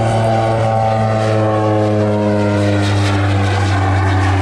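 A North American OV-10 Bronco flying past, its twin turboprop engines and propellers making a loud, steady hum whose pitch falls slowly as the aircraft goes by.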